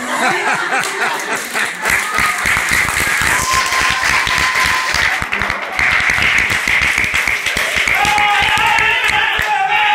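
Audience applause: many hands clapping, with voices calling out over it.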